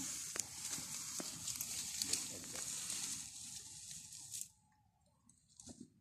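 Leopard feeding on a kudu carcass: irregular tearing and crunching with a few sharp clicks, over a steady high hiss. The hiss cuts off suddenly about four and a half seconds in, leaving it much quieter.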